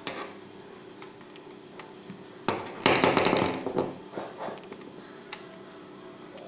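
Handling noise from a screwdriver and an upturned plastic computer keyboard: a few light clicks and taps, with one loud burst of rattling about two and a half seconds in that lasts about a second. A steady low hum runs underneath.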